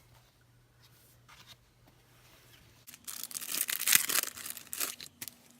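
Crinkly packaging handled and torn open by hand: a loud burst of rustling and crackling about three seconds in, lasting a couple of seconds after a near-quiet start.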